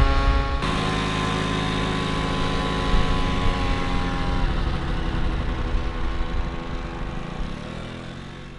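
Small motor scooter engine running at low speed. Its note drops sharply about half a second in as the throttle eases, then slowly fades away.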